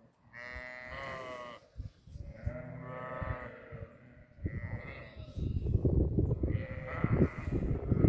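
Sheep in a flock bleating, about four long bleats one after another. From about halfway through, a loud low rumble on the microphone comes in under the later bleats.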